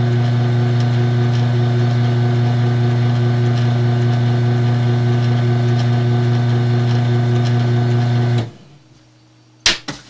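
Craftsman half-horsepower garage door opener motor running with a steady electric hum. It runs because a 555-timer pulse board stands in for the safety sensor. It stops abruptly about eight and a half seconds in, followed by two sharp clicks near the end.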